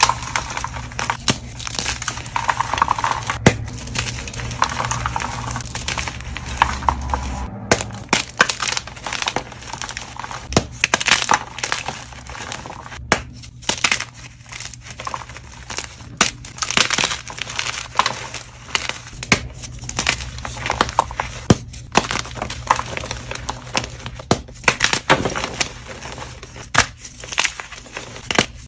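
Blocks of dyed gym chalk being crushed and crumbled, a dense, irregular run of crisp crunches and crackles.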